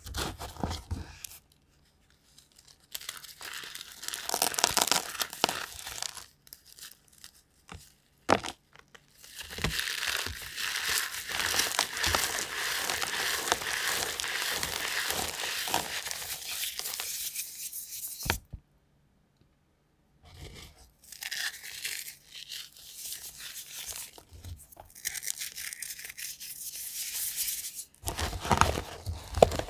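Bare fingers crushing and crumbling blocks of gym chalk and dyed chalk pieces, a dry, powdery crunching. It comes in bursts, with a long unbroken stretch a little after the start, a brief pause a little past the middle, then more short bursts.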